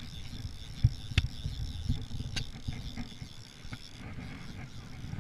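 Fishing reel's drag buzzing steadily as a hooked sea trout pulls line off, stopping about four seconds in, over low rumbling handling noise on the microphone and a few sharp clicks.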